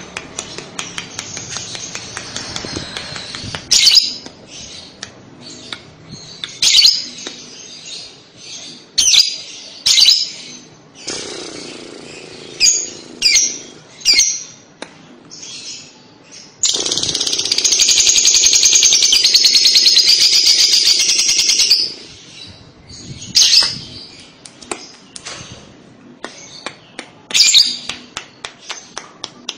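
Fischer's lovebird singing: sharp, scattered chirps, then about 17 seconds in a long run of rapid, unbroken chattering, the lovebird's 'kekek' song, lasting about five seconds, before the chirps resume.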